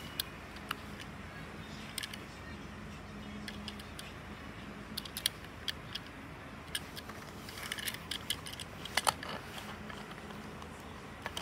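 Light clicks and taps from a Tomica die-cast toy car being turned over in the fingers, coming irregularly. A quick cluster of louder taps about three-quarters of the way through as the car is set down on its cardboard box.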